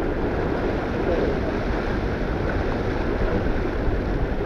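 Wind buffeting the microphone over water rushing along the hull of a sailboat sailing downwind, a steady rushing noise.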